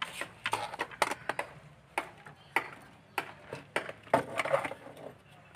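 Irregular clatter of tools and parts being handled on a hard surface: about a dozen sharp clicks and knocks, some with a short scrape, the loudest about four seconds in.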